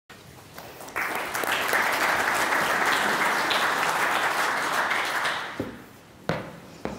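Audience applauding, starting about a second in and dying away after about five seconds, followed by a couple of sharp knocks near the end.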